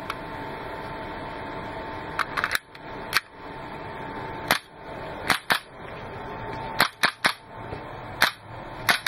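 Western Arms Tiki Hybrid Hi-Capa gas blowback airsoft pistol firing single shots at an irregular pace: about a dozen sharp cracks of the slide cycling, starting about two seconds in.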